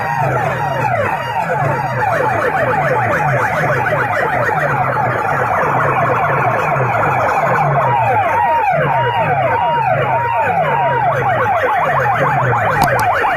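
Siren-style effect tone played loud through banks of horn loudspeakers: quick falling sweeps repeating several times a second, over a low pulsing beat.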